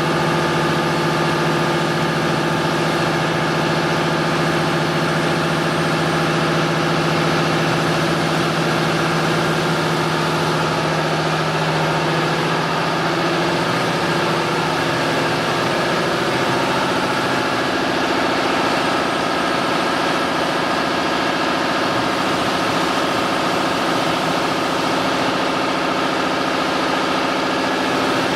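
CNC wood router running steadily, a loud machine drone with a few steady tones that shift in pitch about halfway through.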